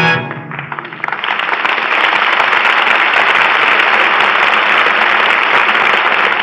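Studio audience applauding at the end of an act of a live radio play. The last of an orchestral brass chord dies away at the very start, then the clapping builds over the first second and holds steady.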